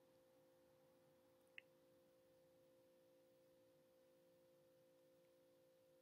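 Near silence: room tone with a faint steady hum and one tiny click about a second and a half in.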